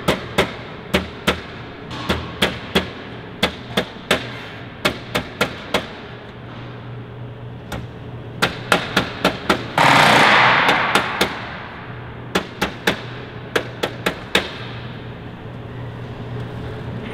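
Metal-on-metal hammer blows, a few a second in irregular runs, as a steel dolly held against the edge of an aluminium aircraft skin panel is struck to form the edge. About ten seconds in, a loud hissing rush lasts about a second.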